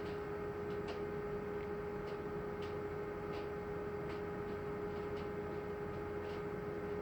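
Steady electrical hum with faint, light ticks evenly spaced about one and a half to the second.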